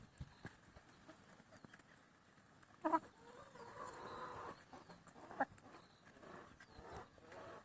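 Chickens calling: one short sharp call about three seconds in, followed straight away by a longer drawn-out call, another short call a couple of seconds later, and softer calls near the end.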